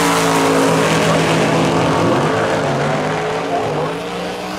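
Drag-race car and pickup truck running at full throttle down the drag strip, their engines at high revs. The engine note dips and climbs again, as at a gear shift, about two seconds in and again near the end, and it grows slightly fainter as they pull away.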